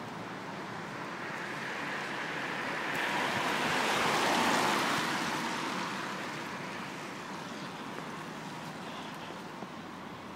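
A car driving past on a wet road, its tyre hiss swelling to a peak just under halfway through and fading away.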